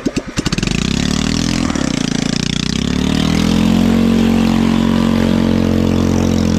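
Small engine of a home-built motorized picnic table running under load as it drives: it comes in suddenly, revs up over the first couple of seconds, dips briefly, then holds steady at high revs.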